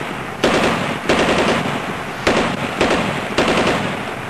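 A series of loud, dull knocks and buffets on a phone's microphone, one every half second to a second at an uneven walking pace, with a noisy street background between them. This is handling noise from a phone carried by someone walking.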